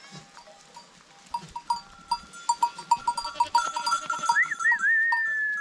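A flock of sheep and goats coming in, their small bells clinking in quick, irregular strokes. A high, wavering call joins in from about four seconds in.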